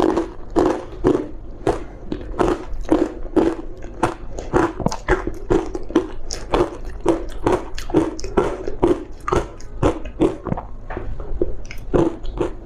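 Close-up crunching of refrozen green matcha powder ice being bitten and chewed, a steady run of crisp crunches about two to three a second.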